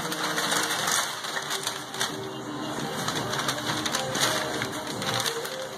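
Gift-wrap paper crinkling and rustling in irregular crackles as a dog pulls and tears it off a present.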